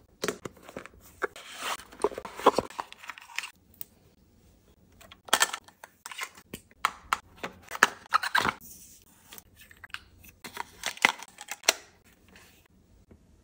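Close-up handling of a Phomemo mini printer and its packaging: cardboard and paper rustling and scraping for the first few seconds, then, after a short pause, bursts of rustling and sharp plastic clicks as the printer's lid is opened, the paper is handled and the lid is pressed shut.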